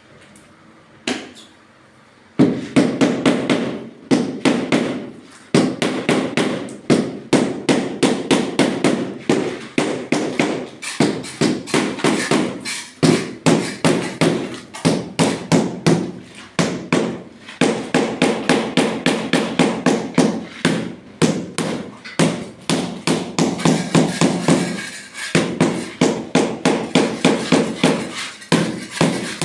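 Rubber mallet tapping a large porcelain floor tile to bed it level into the sand-and-cement mortar. It starts about two seconds in and goes in quick runs of about five taps a second, broken by short pauses.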